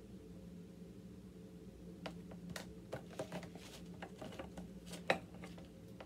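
Hands handling and folding a knitted piece and its yarn: scattered soft rustles and light clicks, busiest in the middle, with one sharper click near the end.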